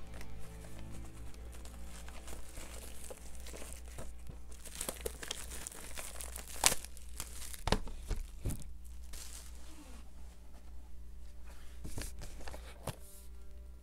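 DVD packaging being torn open and crinkled by hand, with scattered sharp clicks and knocks from the case. The loudest snap comes about halfway through.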